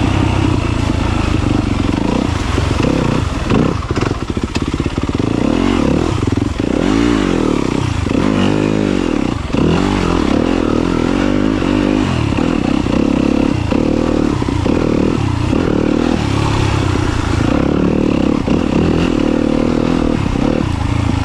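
Yamaha YZ250FX dirt bike's four-stroke single-cylinder engine running on the trail, its pitch rising and falling again and again as the throttle is opened and closed.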